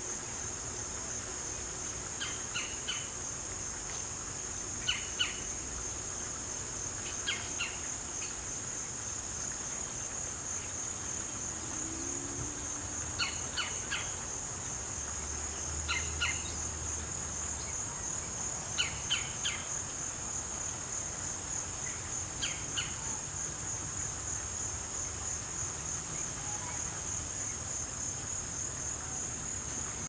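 Steady high-pitched insect chorus, with a bird giving short clusters of two or three quick chirps every few seconds.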